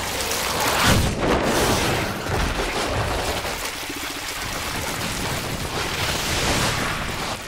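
Anime fight sound effects: a continuous noisy rush of blows and crashing, loudest about a second in, with rubble breaking and scattering.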